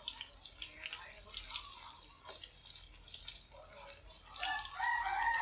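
Vegetable and tofu fritters deep-frying in hot oil: a steady sizzle with many small crackles and pops. About four and a half seconds in, a faint held high-pitched call joins in.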